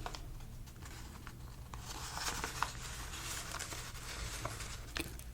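Paper banknotes handled close to the microphone: a few light ticks at first, then dry rustling and crinkling in the middle, over a low steady hum.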